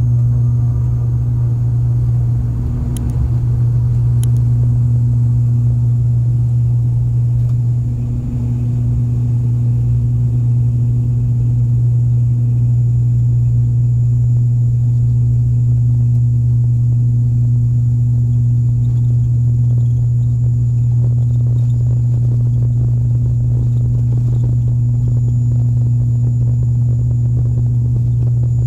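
Cabin drone of an ATR 72-600's turboprop engine and six-bladed propeller, heard from the seat beside it: a loud, steady, low hum at constant power while the aircraft moves on the ground, dipping slightly about eight seconds in.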